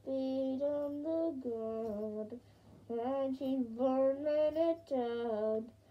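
A young girl singing a tune with her mouth covered, so it comes out muffled and hummed, in phrases of held notes with a short break about halfway through.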